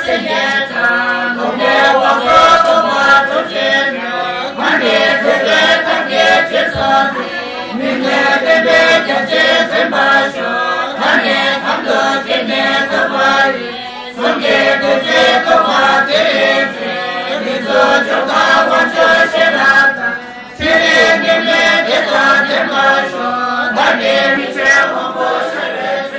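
A group of voices chanting Tibetan prayers in unison, amplified through a microphone, with two brief drops about 14 and 20 seconds in.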